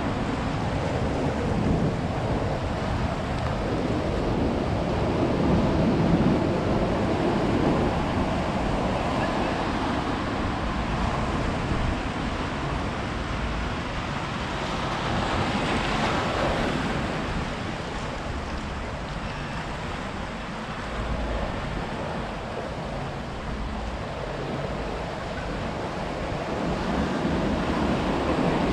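Ocean surf: waves breaking and washing up the beach in a continuous rush that swells and ebbs, with one wave breaking louder about halfway through.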